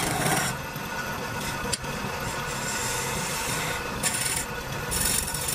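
A hand-held lathe chisel shaving a spinning wooden stair baluster on a wood lathe, a continuous scraping hiss of the cut. It is louder right at the start and again about four and five seconds in, with one sharp tick near the two-second mark.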